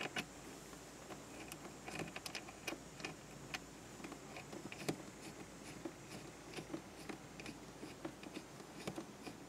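Faint, irregular small clicks and taps of a coax cable's connector being handled and plugged into the inside coupling box of a glass-mount scanner antenna.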